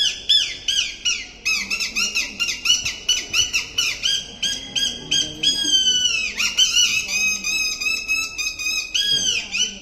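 Rajasthani string-puppet performer's squeaky reed-whistle voice for the puppet: a fast run of high chirping squeaks that bend up and down, with one longer falling squeak about six seconds in.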